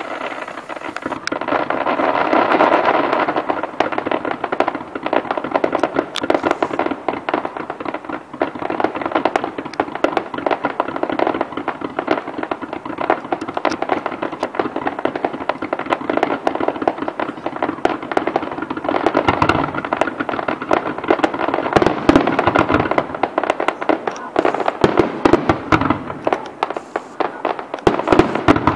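Fireworks display: a dense, continuous crackling of many small reports, with a few heavier bangs about twenty seconds in and again near the end.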